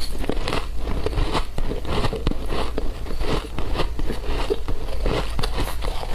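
Shaved ice being bitten and chewed: a dense, irregular run of crunches and crackles, over a steady low hum.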